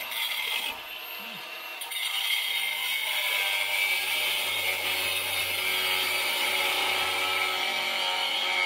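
A power cutting tool runs steadily through metal with a high, grinding whine, getting louder about two seconds in as it bites.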